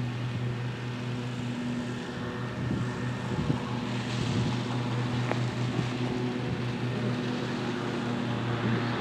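Distant GE Gevo diesel locomotives (ES44AC and ET44AC, GEVO-12 engines) working a heavy freight train toward the listener: a steady low drone of the engines, with wind noise on the microphone.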